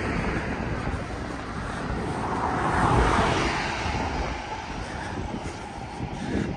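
A vehicle passing by: a rushing noise swells to a peak about three seconds in, then fades.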